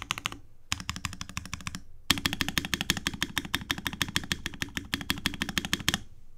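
Fast typing on a custom Savage65 mechanical keyboard with a POM plate and lubed Dogikon switches: rapid keystroke clacks in three bursts with short pauses, the last and longest stopping about six seconds in.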